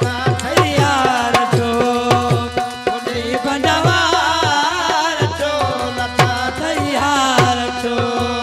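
Live amplified folk music: a hand-drum rhythm with deep strokes whose pitch slides down after each hit, under a wavering melody line and steady held tones.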